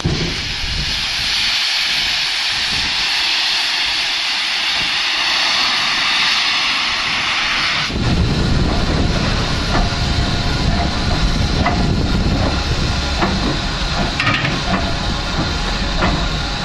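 Steam locomotive blowing off steam: a loud, steady hiss. About eight seconds in the hiss eases and a low rumble with a few light knocks joins it.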